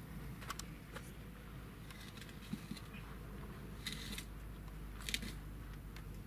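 A gloved hand handling a metal flower pot and its plant: a few faint clicks and brief brushing sounds, the strongest about four and five seconds in, over a low steady hum.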